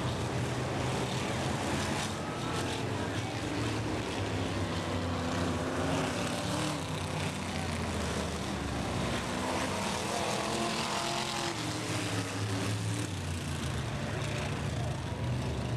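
A pack of vintage dirt-track race cars running at speed around the oval, their engine notes rising and falling as they pass.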